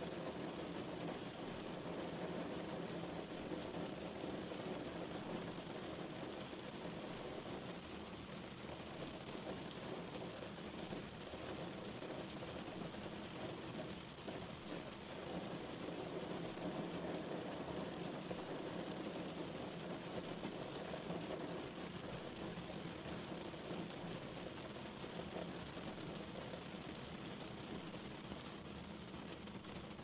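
Heavy rain falling on a car, a dense, steady spatter of drops that keeps up without a break.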